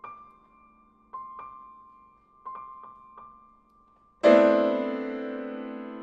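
Grand piano playing slow, quiet single notes, a handful struck one after another and left ringing, then a loud full chord struck about four seconds in that rings on and slowly fades.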